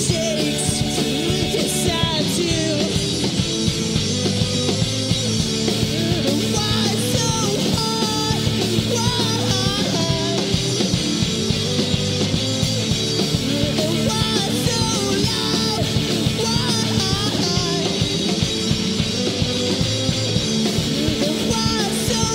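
Live rock band playing: two electric guitars, an electric bass and a drum kit, with a melody line sliding and bending in pitch over steady low chords and a driving beat.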